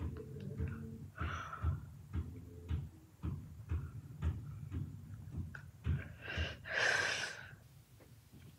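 Close breathing and sniffing from a person flossing their teeth, over a run of dull low thumps about once or twice a second. A strong rushing breath about seven seconds in is the loudest sound.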